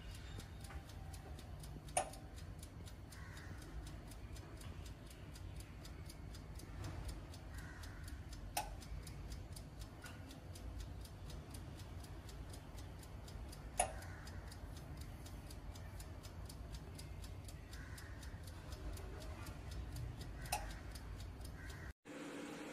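The mechanical wind-up timer of a Cornell 9L oven toaster ticking evenly and fast over a steady low hum while the oven heats, with four sharper, louder clicks a few seconds apart.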